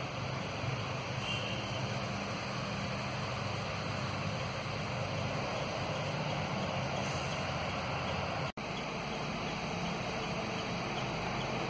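Steady low rumbling background noise with no distinct events, cut off for an instant about eight and a half seconds in.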